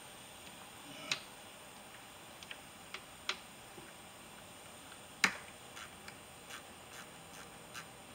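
Irregular light metallic clicks and taps of a T25 Torx socket on a wobble extension working the A/C expansion valve's bolts, with one sharper tap about five seconds in.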